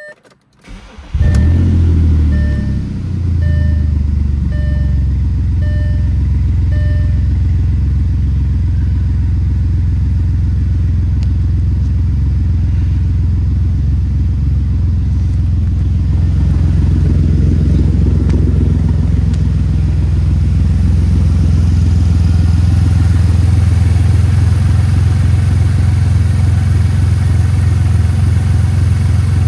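Audi 3.2 L V6 FSI engine starting about a second in, surging briefly as it catches, then idling steadily at about 1000 rpm, a little louder after about sixteen seconds. A dashboard warning chime beeps repeatedly over the first several seconds.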